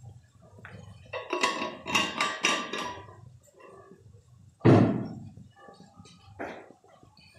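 Metal and glass clinking and clattering with short ringing tones as a stainless-steel thermos flask and its cap are handled, then one loud thump and a lighter knock.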